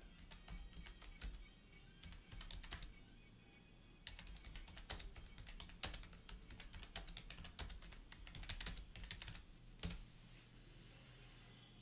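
Faint typing on a computer keyboard: quick runs of sharp keystroke clicks, with a pause about three seconds in and a last single click near the end.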